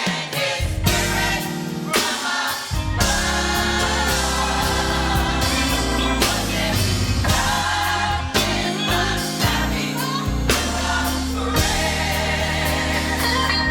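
Youth gospel choir singing with instrumental backing: a steady bass line and a beat under the sung voices.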